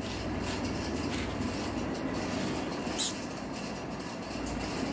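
Steady low background rumble, with one sharp click about three seconds in.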